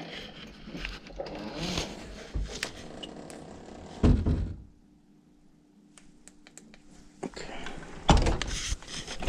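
Rustling and handling noise with scattered clicks, then a loud thunk about four seconds in. A quieter stretch with a faint steady hum follows, and the handling noise returns near the end.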